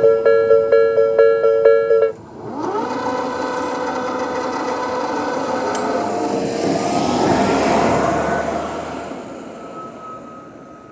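Japanese electronic level crossing alarm of the Tobu 'sound B' type, ringing a repeating two-tone chime at about three strikes a second, cuts off about two seconds in once the train has cleared. Then a vehicle runs past, its sound rising to a peak a little before eight seconds in and fading away.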